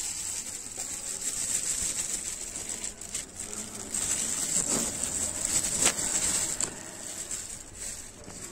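Plastic bag rustling and crinkling as cornflour is poured out of it onto a steel plate, with a few sharper crinkles near the middle, over a steady high hiss.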